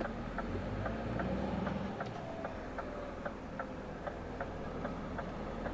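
Truck's turn-signal indicator ticking in the cab, about two and a half even ticks a second, over the low steady hum of the running engine.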